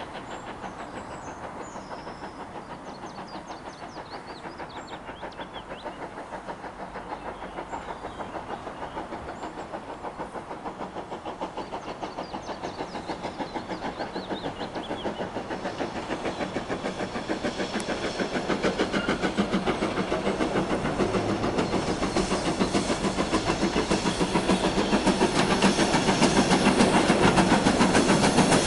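Steam locomotive approaching with a steady rhythmic chuff of its exhaust beats, growing steadily louder as it draws nearer.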